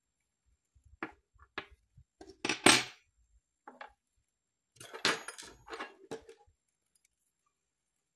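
Small metallic clinks and scrapes of a thin metal dental wax instrument being handled: a few scattered clicks, then two busier clusters, the loudest about two and a half seconds in with a brief high ring.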